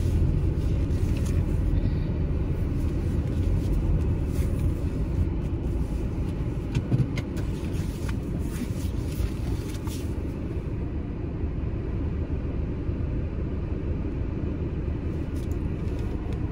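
Car cabin noise while driving slowly: a steady low rumble of engine and road, easing off a little partway through.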